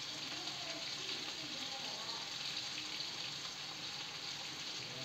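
Diced potatoes in masala sizzling steadily in oil in an aluminium kadhai on the gas flame, a hissing frying sound with no stirring strokes.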